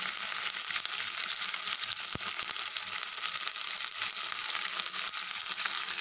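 Water boiling hard in a steel kadhai: a steady crackling hiss of bubbles, with a brief soft knock about two seconds in and another at the end as coriander vadis are dropped into the pan.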